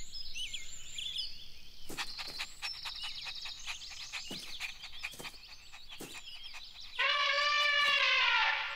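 Cartoon birdsong: quick high chirps and twitters, with scattered sharp clicks. About seven seconds in, a louder, drawn-out pitched cry from the cartoon puppy starts and runs for nearly two seconds.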